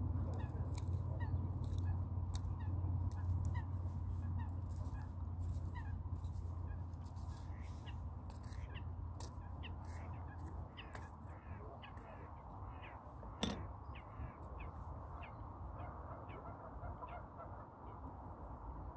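Waterfowl calling again and again across open water, in many short honking calls. Under them a low rumble fades away over the first half. One sharp knock comes about two-thirds of the way through.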